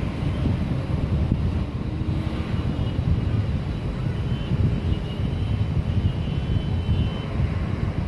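Steady low rumble of city street traffic heard from high above, mixed with wind on the microphone.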